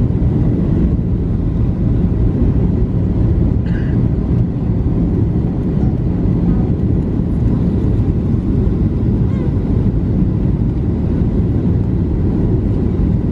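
Steady, low drone in the cabin of a Boeing 737-800 descending with flaps extended: its CFM56-7B engines running and air rushing past the fuselage, heard from a window seat beside the wing.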